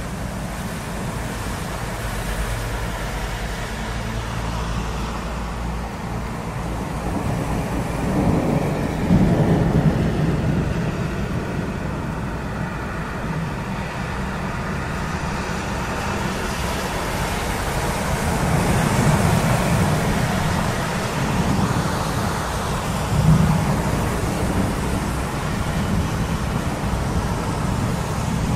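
Summer storm in a city: steady rain with traffic noise and deep rumbles. The rumbles swell and fade about eight seconds in and again near twenty seconds, with a short louder peak a few seconds later.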